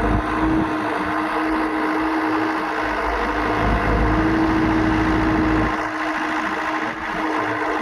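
Excavator's diesel engine running steadily with a constant hum over a deep rumble. The rumble eases off about six seconds in.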